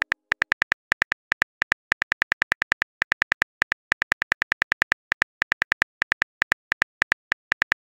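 Phone keyboard key-tap clicks, one per letter as a text message is typed out, about six a second with a few brief pauses.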